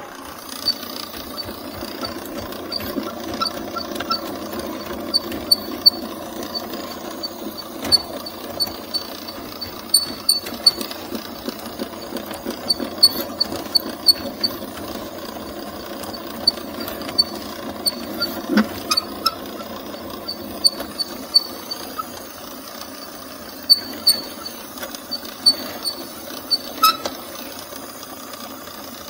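Drain snake machine running, its cable turning inside a clogged kitchen sink drain line: a steady mechanical run with irregular sharp clicks and squeaks from the cable in the pipe.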